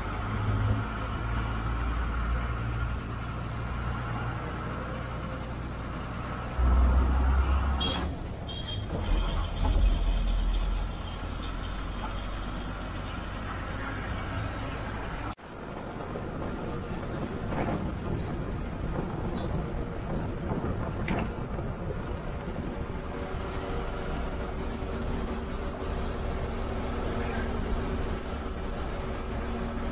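A state-transport bus running on the road, heard from the driver's cabin: a steady engine and road rumble, with a few heavy low thumps about seven to ten seconds in. The sound cuts out abruptly for an instant about halfway, then carries on steadily.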